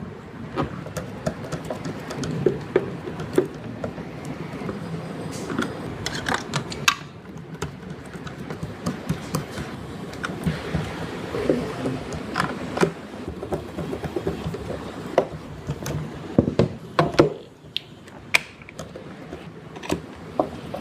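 Irregular clicks, taps and knocks of hands and small tools working on a portable speaker, with handling noise between them.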